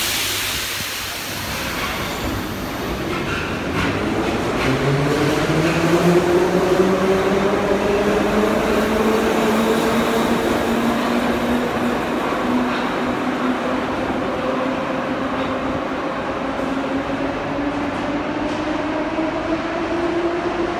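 Metro train of the 81-540.2/541.2 type pulling away: a knock at the start, then the traction motors' whine climbs steadily in pitch as the train gathers speed, over the rumble of the wheels on the rails.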